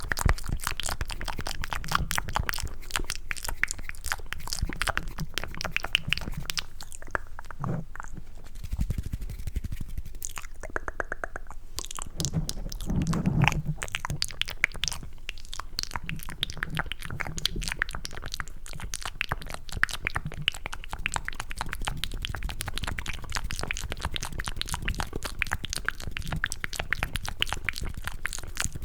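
Cupped ASMR mouth sounds close to the microphone: rapid wet clicks, smacks and squelches imitating the squish of eating mac and cheese, thinning out for a few seconds about a third of the way in.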